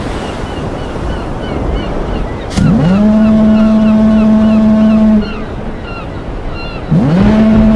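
A foghorn sounding two long, low blasts over the wash of ocean waves. Each blast slides up in pitch as it starts and then holds steady. The first lasts about two and a half seconds, and the second starts near the end. Short high cries repeat throughout.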